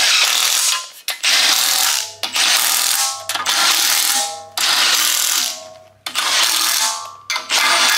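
Milwaukee Fuel cordless ratchet running in about seven bursts of roughly a second each, with short pauses between, as it drives down bolts on an LS engine's windage tray and oil pickup.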